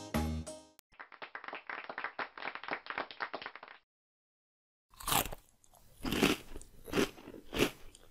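A children's song's last notes end just under a second in. A fast run of small clicks follows for about three seconds. After a short gap comes a cartoon crunching sound effect of a head of cabbage being bitten, several loud crunches in a row.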